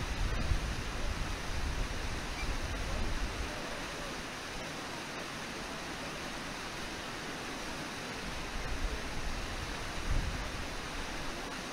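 Steady rush of a river waterfall and its white-water rapids: an even wash of noise, with stronger low rumbles in the first few seconds and again about ten seconds in.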